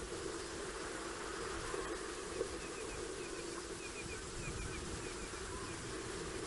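Night ambience at a waterhole: a steady low hum, with a run of short, high chirps from about two to five seconds in and a single brief tap about two and a half seconds in.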